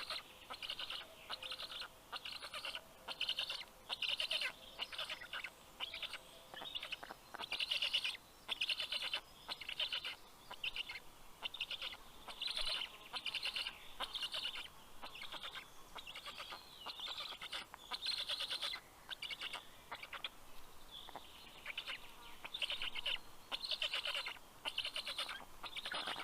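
Black stork chicks calling over and over in short rasping bursts, roughly once a second: their greeting and begging calls to a parent bringing fish.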